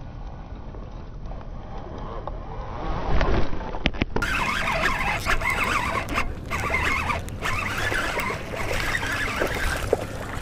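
Water splashing and rustling while a hooked largemouth bass is fought in to the bank through shoreline weeds. It is muffled and quieter for about the first four seconds, then louder and rougher.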